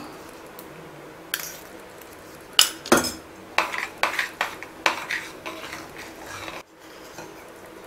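Steel spoon stirring thick semolina-and-papaya kesari in a stainless steel kadai, giving irregular scrapes and clinks against the pan's sides. The scraping begins about a second in, with its loudest knocks near the middle.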